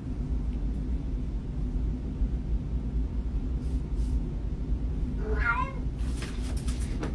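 A domestic cat gives one short, wavering meow about five seconds in, a call that sounds like "what", over a steady low hum.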